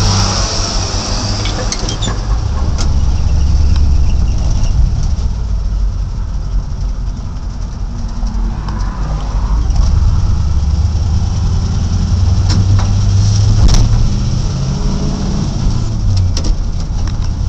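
Old truck's engine running under way, heard from inside the cab as a low steady drone that steps up and down in pitch a few times as the gears are shifted. A few sharp knocks sound through it.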